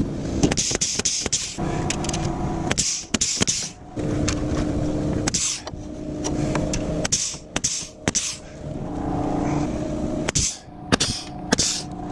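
DeWalt pneumatic framing nailer firing nails into wooden truss tails, a few sharp shots about half a second in and again near the end. Footsteps crunch on gravel in between, with a low hum that comes and goes.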